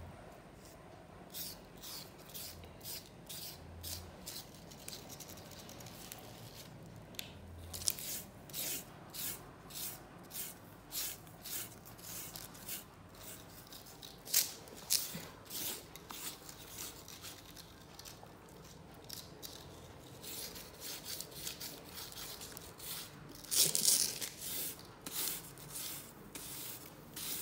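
Hands rubbing and patting colored craft sand onto a sticky sand-art sheet: short, faint scratchy strokes coming about twice a second, with a louder flurry of rubbing near the end.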